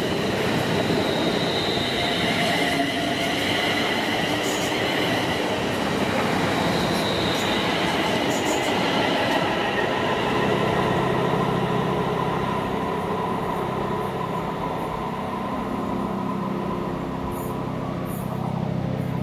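London Northwestern Railway Class 350 Desiro electric multiple units running past on the track: a steady rumble of wheels on rail with high whining tones through the first half. A lower steady hum comes in about halfway through.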